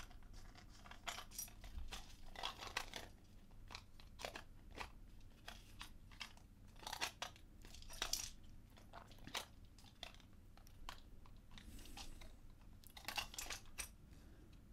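Faint, irregular clicks and scrapes of a 3D-printed plastic puzzle box being handled, its parts pushed in, pulled out and turned.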